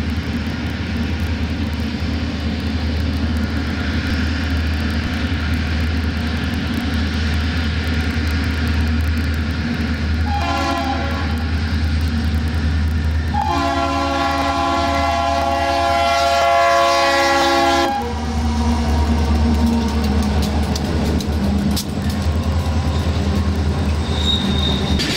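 Diesel freight locomotive horn sounding a short blast about ten seconds in, then a long blast of about four seconds, over the steady low rumble of the train's diesel engines. Near the end a locomotive rolls close past on the rails.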